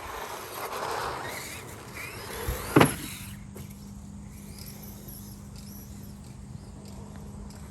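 RC buggy with a Traxxas brushed electric motor driving, its motor whine rising and falling as it speeds up and slows. A single sharp knock about three seconds in is the loudest sound, followed by a steady low hum.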